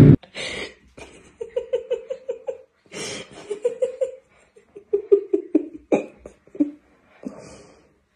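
A person laughing helplessly in three fits of rapid ha-ha pulses, with a few short scrapes and knocks between them.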